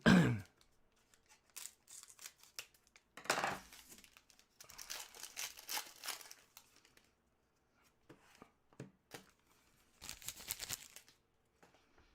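Trading-card pack wrappers being torn open and crinkled, in several separate rustling bursts with a few small clicks of cards being handled between them. A brief loud sound that falls in pitch opens the stretch.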